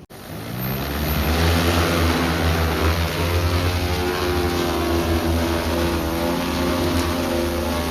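A vehicle engine running, building up over about the first second and then holding a steady drone.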